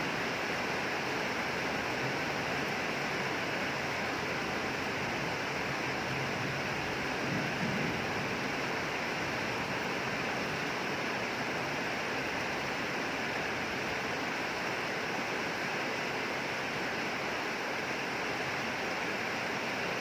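Steady rain falling, a continuous even hiss with no change in level.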